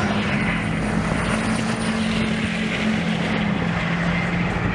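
Diesel pickup trucks running down a drag strip, a steady engine drone.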